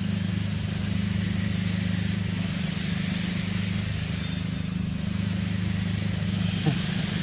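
A steady low hum over an even outdoor hiss, with one brief short call near the end.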